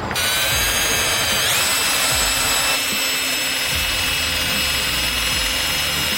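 Electric drill spinning a headlight-restoration pad against a plastic headlight lens. The motor whine is steady and steps up in pitch about a second and a half in, as the speed is raised.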